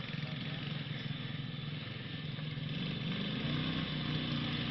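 Motorcycle engine running under load up a muddy hill track, with a steady hum. About three seconds in its pitch rises as it revs up.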